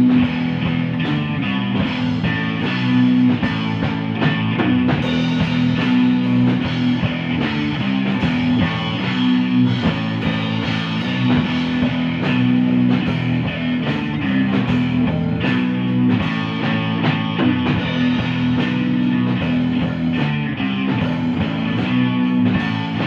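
Rock band playing an instrumental passage with no vocals: electric guitars over bass guitar and drum kit, loud and steady throughout.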